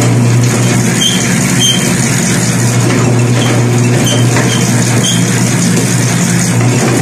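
Motorised bread-dough roller running with a steady low hum as a sheet of dough is worked over its heavy rollers.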